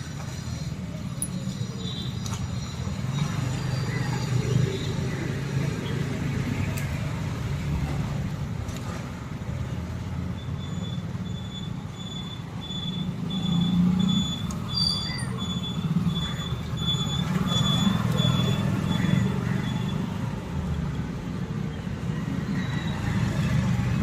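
Motor vehicle engine running with road traffic noise around it. For about ten seconds in the middle, a short high-pitched electronic beep repeats a little more than once a second.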